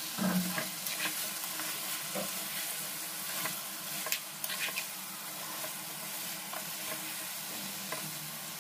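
Chicken liver and boiled eggs frying in oil in a kadai, a steady sizzle, the water cooked off and the oil separating out. A steel spatula scrapes and clinks against the pan as ginger-garlic paste is stirred in, with a few sharper clinks around three and a half to four and a half seconds in.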